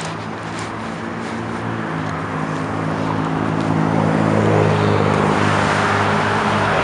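A heavy diesel vehicle engine running at a steady pitch, growing louder as it approaches and passes close by.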